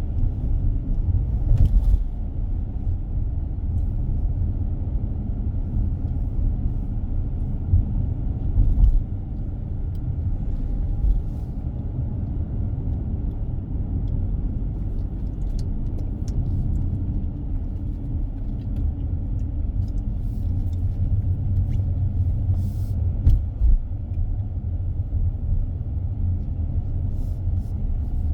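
Car driving on a road: a steady low rumble of tyres and engine, broken by a few short thumps, a couple of seconds in, around nine seconds and again near the end.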